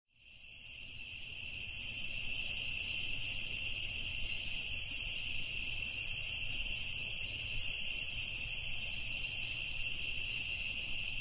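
Steady chorus of chirring crickets, fading in over the first couple of seconds and then holding level.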